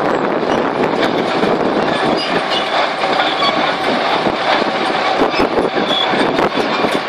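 Crawler bulldozer driving over dirt: its diesel engine running under a continuous clatter of the steel tracks, with short, repeated high squeals from the track running gear.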